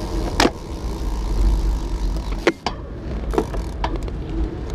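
Bicycle riding along an asphalt street, heard on a handlebar-mounted camera as a steady low rumble of wind and road noise, with a few sharp clicks and knocks scattered through it.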